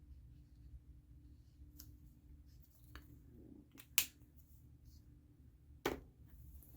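A few short, sharp plastic clicks of alcohol marker caps being pulled off and snapped back on. The loudest comes about four seconds in, another near the end, all over a faint low hum.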